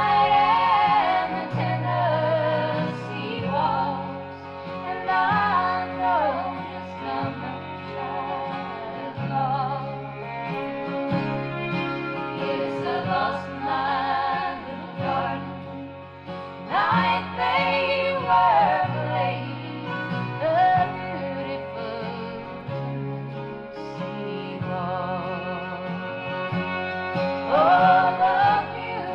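A song with a singer and instrumental backing, played from a vinyl EP record through a Matsushita EAS-20P19SA 20 cm full-range speaker in a sealed cabinet, driven by an EL34 single-ended tube amplifier. The voice carries a wavering vibrato over a bass line that steps from note to note.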